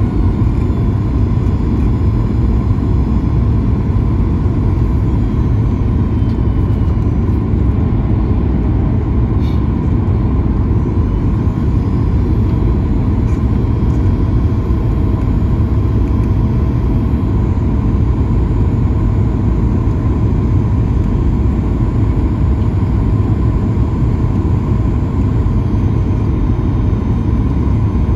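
Steady cabin noise of a Boeing 737 MAX 9 descending on approach, heard inside the cabin beside the wing. A low rumble of airflow and its CFM LEAP-1B engines runs throughout, with faint steady whining tones above it.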